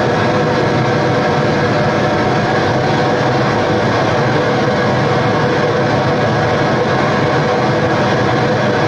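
Experimental noise music played live: a loud, steady wall of dense noise with a low rumble and a few sustained drone tones, unchanging throughout.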